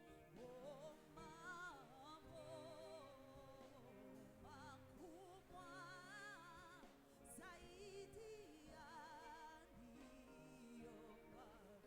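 Faint worship music: one voice singing slow phrases with vibrato over steady held chords.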